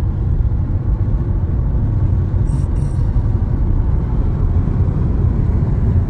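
Steady low rumble of a car driving at road speed, heard from inside the cabin: tyre, engine and wind noise.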